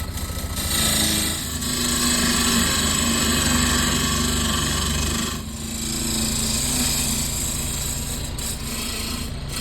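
Small benchtop wood lathe running with a gouge cutting into a spinning eastern red cedar blank: a steady motor hum under the hiss and rasp of the tool taking off wood. The cut lifts off briefly about five seconds in, then resumes.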